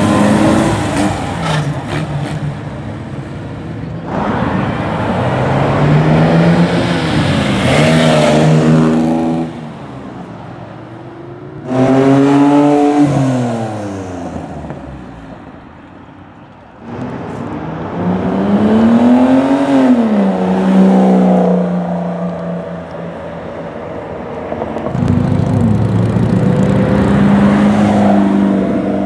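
Performance cars accelerating away one after another, each engine revving up and dropping in pitch with the gear changes.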